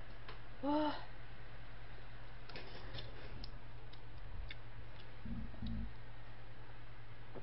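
A woman drinking from a plastic bottle, with two low gulps a little after five seconds in. Before that, a short hummed vocal sound about a second in and a few light clicks around three seconds, over a steady low electrical hum.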